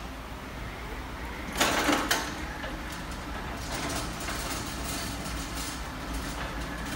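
EP EPT20-15ET lithium-battery electric pallet truck rolling over steel plate as it leaves a container, with a loud metallic clatter about one and a half seconds in as its wheels bump across the threshold, then a steady rolling rumble with a few lighter knocks.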